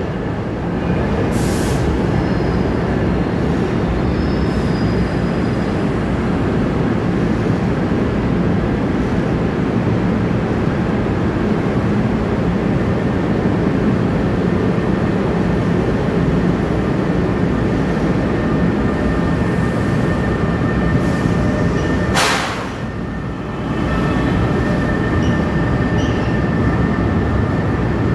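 NJ Transit Comet IV coaches rolling slowly past in an underground station, a steady heavy rumble with a faint, steady, high-pitched squeal of wheels on rail. About 22 seconds in there is a brief hiss, and then the rumble drops for about a second.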